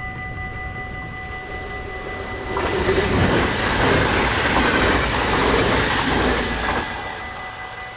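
A train passing straight through a level crossing: its loud rush of wheels and body noise starts about two and a half seconds in and dies away after about four seconds. Underneath, the crossing's warning bells ring steadily throughout.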